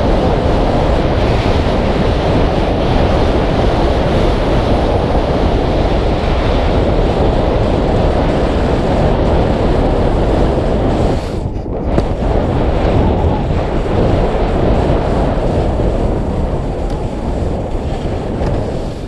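Wind buffeting a moving action camera's microphone, mixed with the steady scrape of edges sliding over packed snow during a run down the slope. The noise dips briefly about eleven and a half seconds in.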